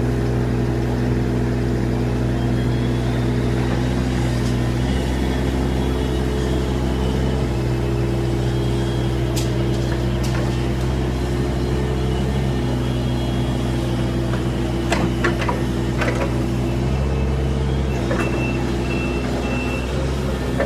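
Kubota KX41-3V mini excavator's three-cylinder diesel engine running steadily, its pitch stepping up and down several times as the hydraulics take load while the arm and bucket work. A few sharp knocks come about three quarters of the way through.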